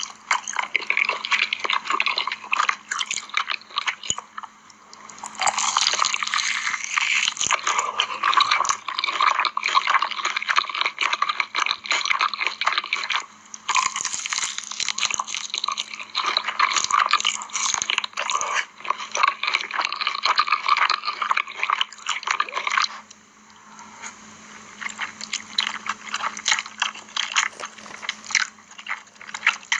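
Close-miked eating of spicy, cheesy instant noodles: continuous wet chewing and slurping with small crunchy bites. There are quieter pauses about four seconds in and around twenty-three seconds in.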